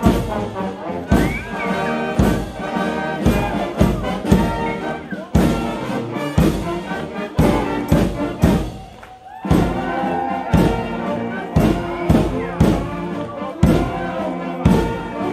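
Brass marching band playing a march: trumpets and trombones over a bass drum beating about twice a second, with a brief lull about nine seconds in.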